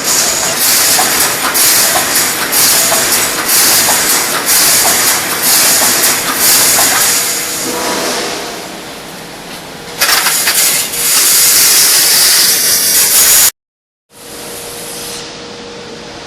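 Wire mesh fence welding machine (GWCD-2500) running through its welding cycles: a run of loud, hissing bursts, roughly one to two a second. About 13 seconds in the sound cuts off abruptly and gives way to a quieter steady hum with a faint steady tone.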